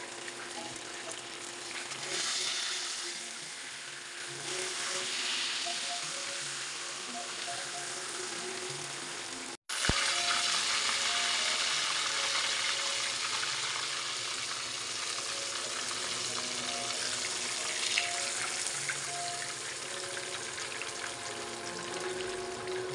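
Breaded pork cutlets sizzling in hot frying oil in a pan, a steady hiss that breaks off briefly about ten seconds in and comes back a little louder.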